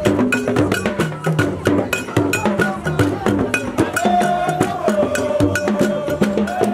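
Hand-beaten square wooden frame drums playing a fast, dense rhythm of sharp strokes and low tones. A held, wavering tone joins about four seconds in.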